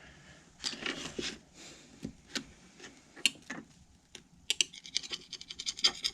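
Scratching on a cracked phone display as a scratch test: a few scattered scrapes and taps at first, then from about four and a half seconds in, quick repeated strokes, several a second.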